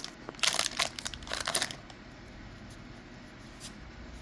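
Wrapper of a Magic: The Gathering Collector booster pack torn open and crinkled, a few short crackles in the first couple of seconds, then quiet.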